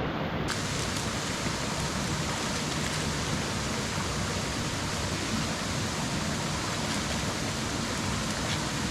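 Steady rushing of running water, an even hiss with no distinct events, which brightens suddenly about half a second in.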